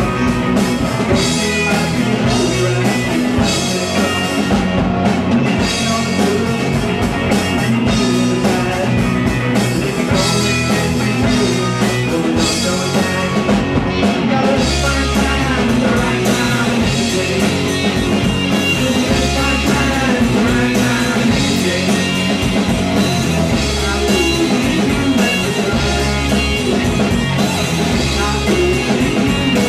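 Live rock band playing amplified electric guitars over a drum kit, loud and steady.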